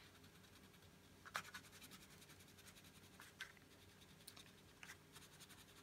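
Faint scratching of a wax crayon rubbed back and forth on paper while colouring in, with a few slightly louder strokes.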